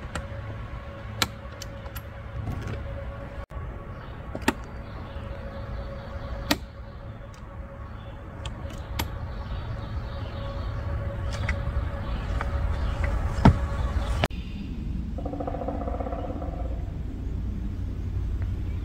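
Sharp metal clicks and knocks from the over-centre latches of an iKamper Skycamp 3.0 mini hard-shell rooftop tent being closed and fastened. A handful of separate clicks, the loudest about two-thirds of the way in, over a steady low rumble.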